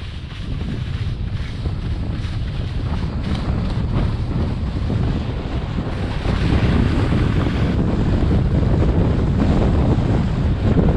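Wind buffeting the microphone of a moving skier's camera, over the hiss and scrape of skis on packed snow. The rush grows louder about six seconds in.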